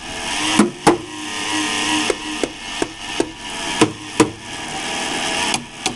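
A PowerSpec desktop computer grinding loudly at a cold start, a steady rasping noise broken by irregular sharp clicks and knocks. The owner blames the power supply. The noise usually stops once the PC reaches the Windows screen.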